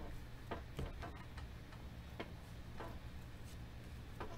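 Panini football trading cards flicked one at a time through the hands, giving faint, irregular light clicks and snaps about every half second.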